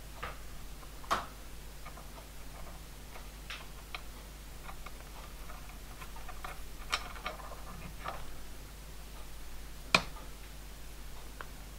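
Light metallic clicks and taps of a tiny nut being threaded by hand onto a small steel drive crank, with a sharper click about a second in and the loudest click near the end as a small socket tool goes onto the nut.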